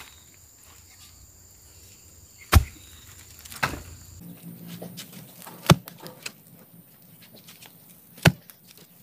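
Sharp, heavy blows struck on wood during fence-post work, four of them a second to three seconds apart, with a steady high insect chirr in the background for the first half.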